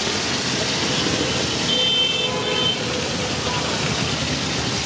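Fish deep-frying in a wide, shallow pan of hot oil, sizzling steadily over a steady low rumble, with a brief high tone about two seconds in.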